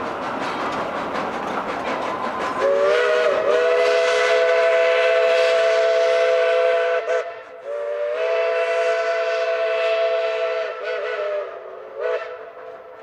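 Steam locomotive's chime whistle sounding a chord of three notes: two long blasts, then a short toot near the end. Before it, the noisy rumble of the train running.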